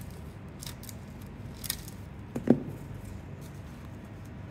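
Scissors snipping through a rhinestone transfer sheet: a few short, sharp snips, then a single dull thump about halfway through.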